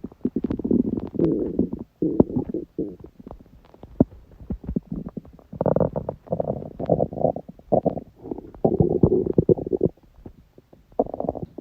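A woman's stomach growling and gurgling in irregular bursts, full of quick popping clicks, with a lull of about two seconds between the first bursts and the later ones. The sounds come from an upset stomach during period cramps.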